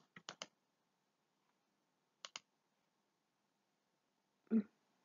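Computer mouse clicks: a few quick clicks at the start and a close press-and-release pair about two seconds in, with near silence between. A brief soft mouth sound near the end.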